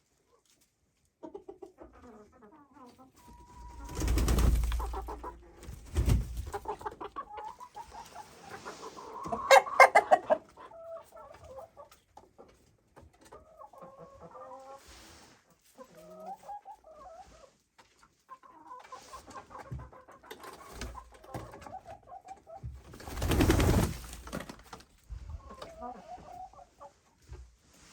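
Domestic chickens clucking, with short calls scattered throughout and a louder flurry of calls about ten seconds in. Twice, a loud rush of noise covers them briefly.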